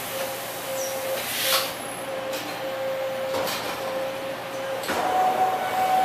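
Toshiba BMC-80E horizontal machining center running under power: a steady mechanical noise with a thin high tone that cuts in and out, and a few short knocks about every second and a half to two seconds.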